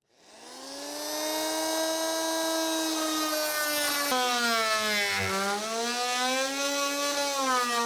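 Oscillating multi-tool spinning up and cutting into a pine door to notch a recess for a thumb-latch receiver. It makes a steady whine whose pitch sags around five seconds in as the blade bites, then recovers.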